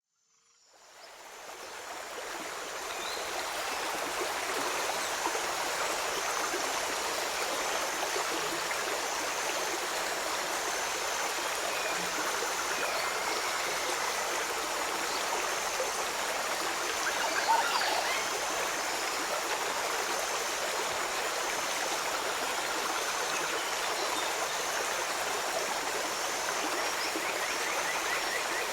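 Forest stream running steadily, an even rush of flowing water that fades in over the first few seconds, with one brief louder swell about two-thirds of the way through.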